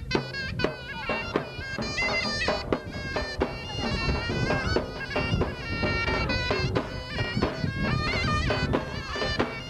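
Anatolian folk dance music: a loud reed pipe plays an ornamented, wavering melody over drum beats.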